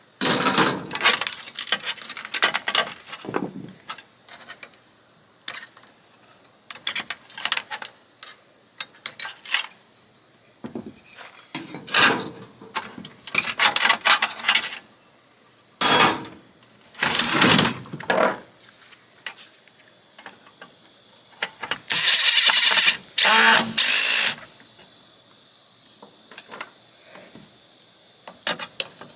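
Power tool run in short, irregular bursts, with longer runs about 16 and 22 seconds in, the later one with a whine. A steady high insect chirring underneath.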